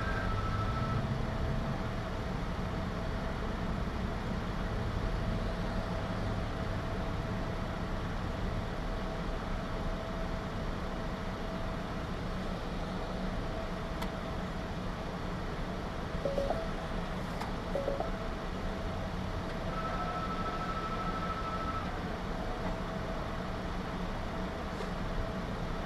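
Steady low rumble of a running vehicle, with a thin steady tone running through it. A higher steady tone sounds briefly at the start and again for about two seconds near the end.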